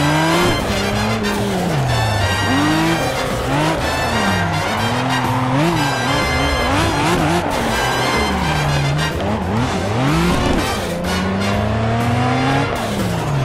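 Racing car engine revving up and falling back again and again, its pitch sweeping up and down, over background music with a beat.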